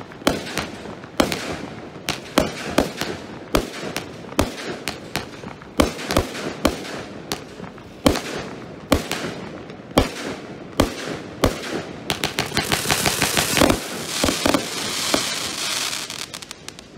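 Cat F3 Roman candle combination barrage firing shot after shot, roughly two sharp reports a second. About twelve seconds in, it breaks into a dense run of rapid crackling pops that dies away near the end as the barrage finishes.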